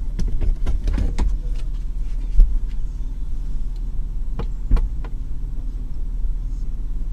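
Steady low rumble of a car heard from inside the cabin, with scattered sharp clicks and knocks. The loudest knock comes about two and a half seconds in, and another just before five seconds.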